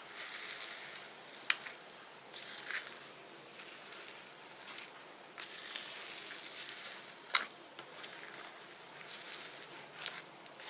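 Fluffy slime being squished by hand: a soft crackly hiss with a few sharp pops, about a second and a half in, past the middle, and near the end.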